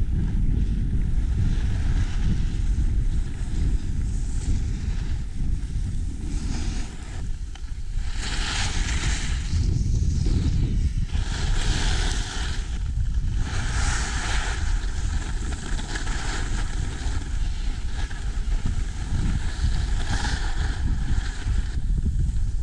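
Wind buffeting a ski-mounted action camera's microphone during a descent, a steady low rumble, with the hiss of skis sliding on groomed snow swelling louder in several spells in the middle of the run.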